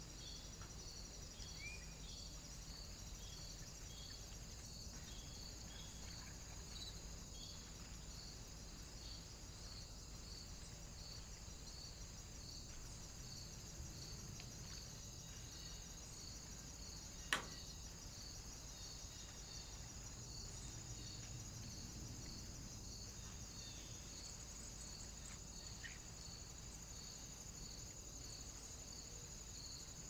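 Faint, steady high-pitched chirring with a regular pulse a little more than once a second, like crickets. There are a few faint bird chirps and one sharp click about halfway through.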